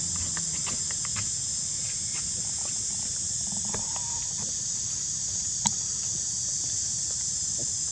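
Steady, high-pitched chorus of insects, with scattered small clicks and one sharp click about two thirds of the way through.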